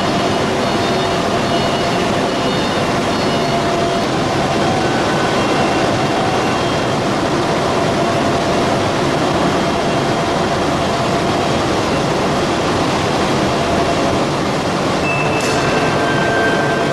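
Steady machinery roar at a copper shaft melting furnace while its skip hoist lifts a bucket of cathode copper: an even, loud noise with faint steady tones under it, and a couple of brief higher tones near the end.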